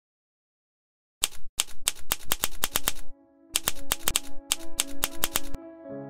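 Typewriter keys striking in quick runs of about five a second, starting about a second in, breaking off briefly near the middle and stopping shortly before the end. Soft music with held notes comes in under it.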